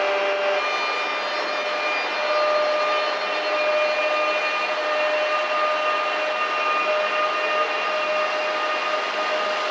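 Two coupled ICE-T electric multiple units (DB Class 411) pulling out of the station. Their electric drive gives a steady whine of several held tones over rolling and air noise. One tone steps up slightly about half a second in.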